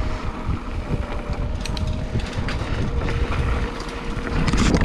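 Wind buffeting a bike-mounted action camera's microphone over the low rumble of a mountain bike rolling along a dirt trail, with scattered rattles and clicks from the bike and a louder burst of rattling near the end.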